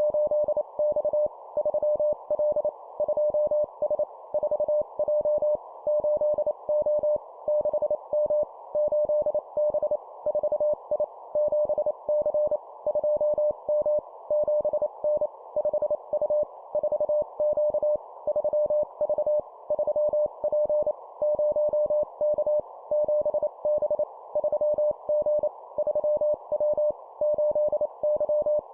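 Morse code (CW) tone of about 600 Hz keyed at 25 words per minute, sending short groups of dots and dashes with a brief pause between each group, over a constant background hiss.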